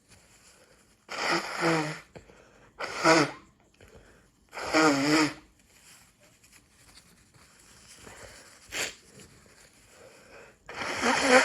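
A person in a hay-fever sneezing fit: three loud voiced sneezes in quick succession, a second or two apart, then a short sharp noise a few seconds later and another sneeze starting near the end.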